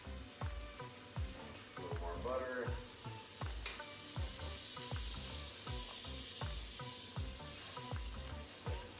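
Butter sizzling in a hot frying pan as bread is worked around in it; the sizzle grows louder about two seconds in. Background music with a steady beat of about two thuds a second runs underneath.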